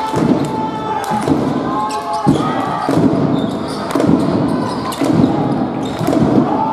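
Basketball game play in a large sports hall: a ball bouncing repeatedly on the court floor, with short high squeaks from players' shoes. Voices shout and chatter throughout, and the hall echoes.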